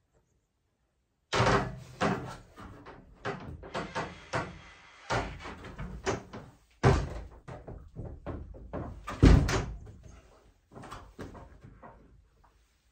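Thuds, knocks and scuffs of a climber's hands and feet on the holds and panels of a plywood home bouldering wall, starting about a second in, with the loudest thump about nine seconds in.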